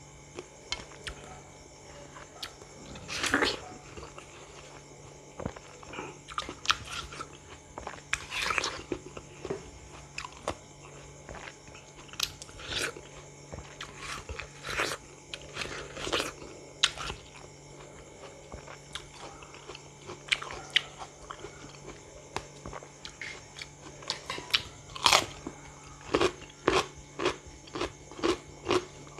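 A person biting into and chewing crisp raw food close to the microphone: scattered crunching bites, the loudest about three, eight and twenty-five seconds in, then a quicker run of chewing at about two strokes a second near the end. A steady low hum runs underneath.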